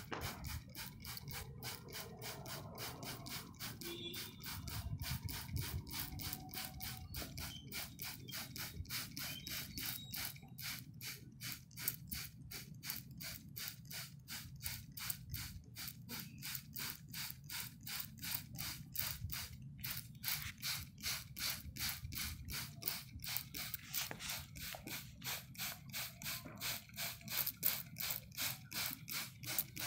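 Water sprayed onto leaves in quick, evenly repeated spritzes, about three or four a second, each a short hiss with a mechanical click.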